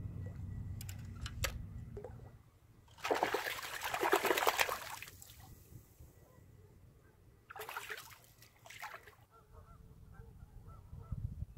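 Hooked flatfish thrashing and splashing at the water surface on the line, in two bouts of splashing. The first bout is the longest and loudest.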